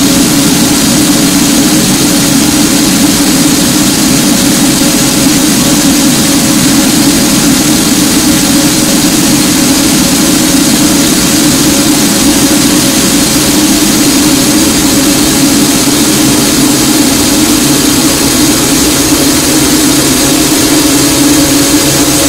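Harsh noise music: a loud, dense, unchanging wall of distorted noise, heaviest in a low-mid band.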